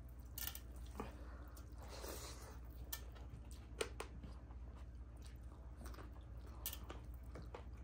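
Close-up eating sounds: fingers mixing rice and dal on metal plates, with chewing and scattered small clicks and wet smacks.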